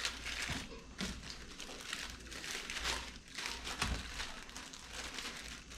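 Plastic wrapper of a cheese slice crinkling as it is handled, a dense run of small irregular crackles.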